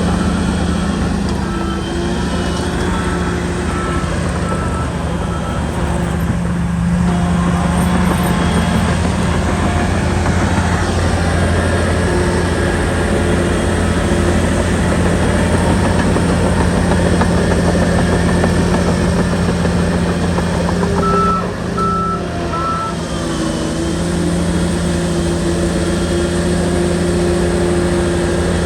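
SHANTUI bulldozer's diesel engine running steadily under load, with a reversing alarm beeping in short evenly spaced pulses for the first five seconds or so and three more beeps a little past the middle.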